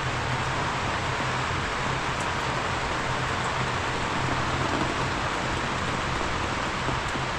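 Heavy, torrential rain falling steadily on a tarp stretched over a tent, a constant even hiss that doesn't let up.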